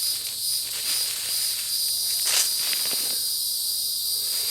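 A steady, high-pitched chorus of insects in the garden, with short rustling and scraping noises in the first few seconds as soil and mulch are pushed back over the replanted seed potatoes.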